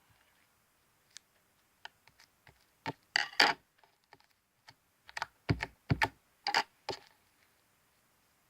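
Scissors cutting through sticky slime: scattered faint clicks, then two clusters of louder crisp snipping and sticky crackling, one about three seconds in and another between about five and seven seconds.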